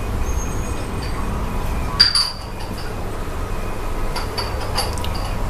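Restaurant tableware clinking: one sharp clink about two seconds in and a few lighter clinks near the end, over a steady low background rumble.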